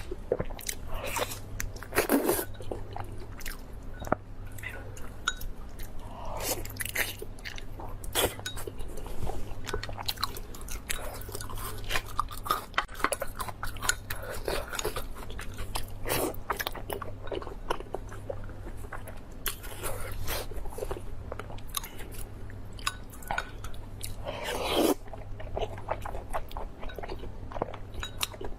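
Close-miked eating: a person chewing and biting food with many sharp clicks and crunches, mouth sounds going on throughout. A faint steady low hum runs underneath.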